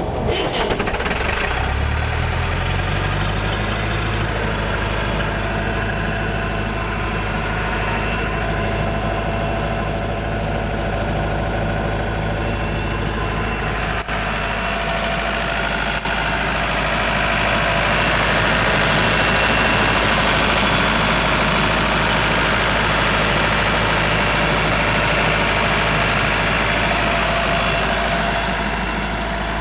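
Sullair 185 CFM portable air compressor starting up: its engine speeds up over the first few seconds, then runs steadily, growing somewhat louder for a while past the middle.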